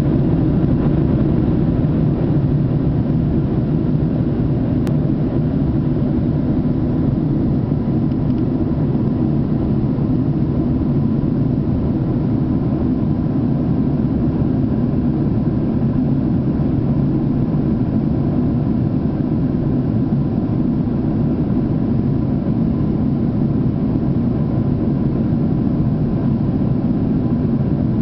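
Airplane engine noise: a steady low rumble with a faint steady high tone above it.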